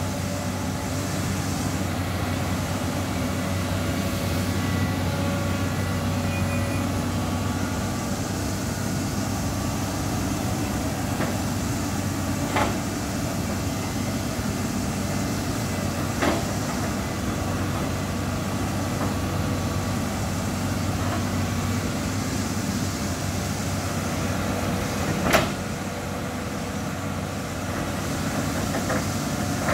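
Caterpillar 320D hydraulic excavator with its diesel engine running steadily under load as it digs. Three sharp clanks come about halfway through and again near the end, the last one the loudest.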